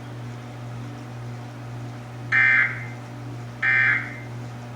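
Emergency Alert System end-of-message signal: short bursts of warbling digital data tones, two of them about a second apart, marking the end of the test message.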